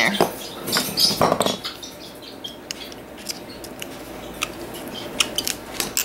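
Scattered small clicks and taps as hands work stainless steel wire and fittings into the end of a cotton rope perch. There is a brief vocal sound about a second in.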